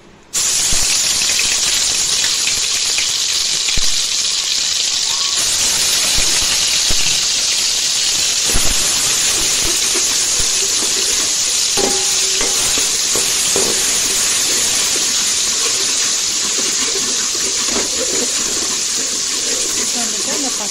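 Ginger-garlic paste dropped into hot oil in a metal kadai: a sudden loud sizzle about half a second in that keeps frying steadily, with a few knocks of a metal slotted ladle stirring it.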